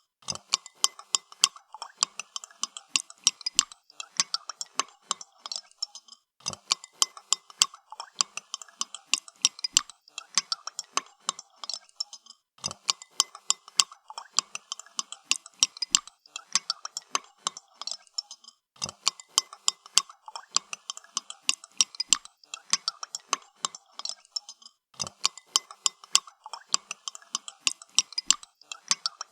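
Spoon stirring in a cup of coffee, clinking rapidly against the cup's sides in runs of about six seconds with a brief pause between runs.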